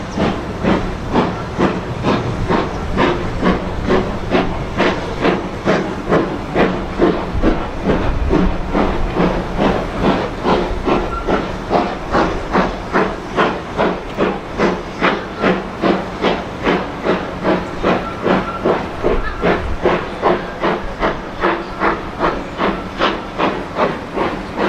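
BR Standard Class 2MT 2-6-0 steam locomotive, a two-cylinder engine, working hard as it pulls a train away: sharp, even exhaust beats at about two a second over a steady hiss of steam.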